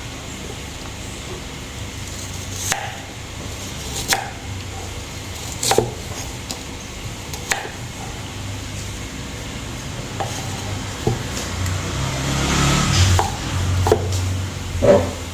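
Knife cutting on a cutting board: separate sharp knocks a second or two apart over a steady low hum, with a short stretch of rustling near the end.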